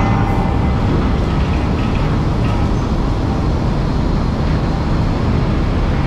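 Steady, loud rumble of a fishing trawler's engine and deck machinery, heavy in the low end and even throughout.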